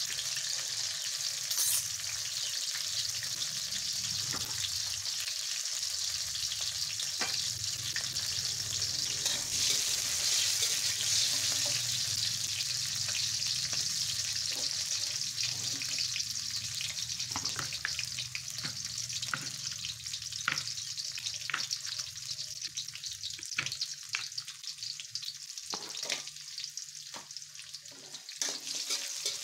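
Oil sizzling steadily in a wok as sliced aromatics are stir-fried, with a metal spatula scraping and clicking against the pan, the clicks coming more often in the second half.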